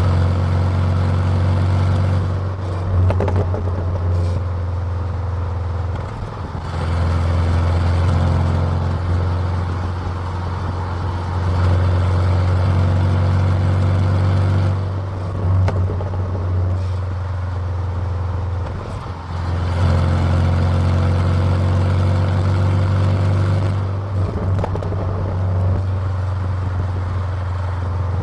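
Car exhaust heard with the microphone close to the tailpipe: a steady, low engine drone that dips briefly every several seconds and then comes back.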